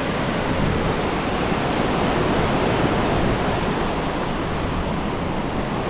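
Small ocean waves breaking offshore and washing up a sandy beach, a steady rush of surf.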